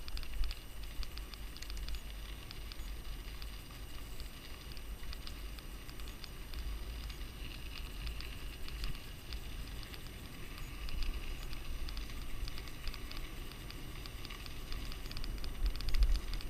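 Mountain bike riding fast along a dirt forest trail: the tyres crackle over dirt and small stones and the bike rattles over bumps, with wind rumbling on the handlebar-mounted camera's microphone. A louder jolt comes near the end.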